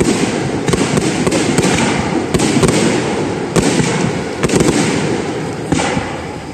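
Aerial fireworks going off in quick succession: many sharp bangs over a continuous low rumble and crackle, easing off near the end.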